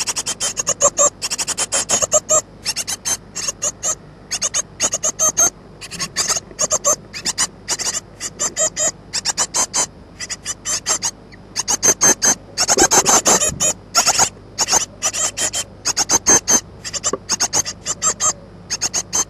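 Great tit nestlings begging for food: rapid trains of high-pitched cheeps in repeated bursts with short lulls, loudest a little past the middle.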